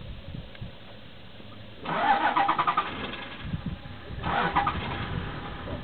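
Safari vehicle's engine being cranked by its starter, in two rapid, rattling bursts: one about two seconds in lasting about a second, and a shorter one near the end.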